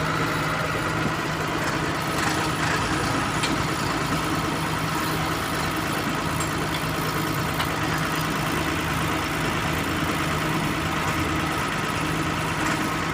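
Engine of heavy machinery idling steadily, a constant even hum with no change in speed.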